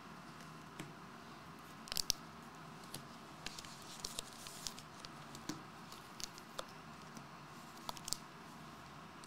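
Trading cards being handled and laid down on a card mat: scattered light clicks and taps, the sharpest pair about two seconds in, over a steady low room hum.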